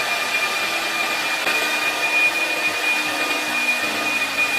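Hair dryer running steadily: a rush of blown air with a constant high whine.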